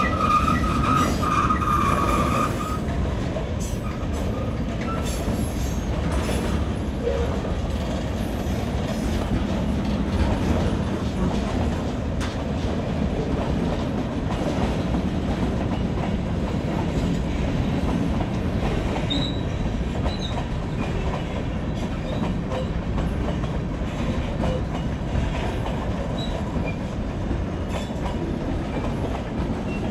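Vermont Railway freight cars rolling past: a steady rumble of steel wheels on the rails. A high wheel squeal in the first couple of seconds fades out.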